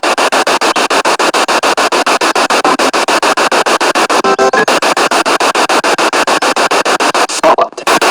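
Spirit box sweeping through radio stations: static chopped into rapid, even pulses, about eight a second. A brief snatch of pitched radio sound comes about halfway through, and the hiss drops out briefly near the end.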